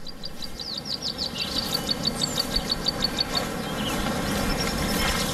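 Outdoor wildlife ambience: a bird giving a quick run of high chirps, about five a second, for the first three seconds or so, over a steady hiss-like background that slowly grows louder.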